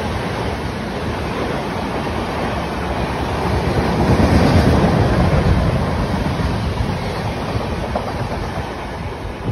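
Passenger train passing a station platform at speed: the steady rumble and rush of the coaches' wheels on the rails, with rail-joint clatter. It grows loudest about four to five seconds in, then fades.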